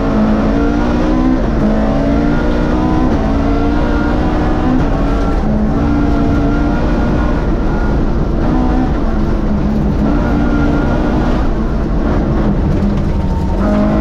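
Vauxhall 2.0-litre rally car engine driven hard, its note climbing under acceleration and dropping back several times at gear changes or lifts, over a steady low rumble of road noise.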